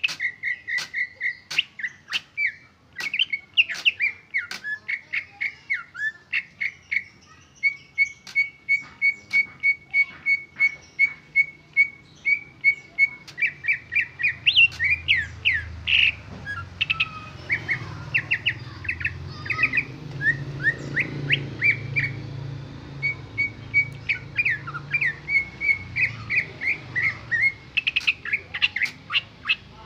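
Green leafbird (cucak ijo) singing its own song without mimicked phrases: long strings of short, clear whistled chirps, with a run of fast, even notes in the middle and quicker sweeping notes after it. A low rumble sits under the song for a while in the second half.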